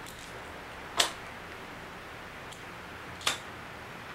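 Two short, light clicks about two seconds apart over quiet room tone.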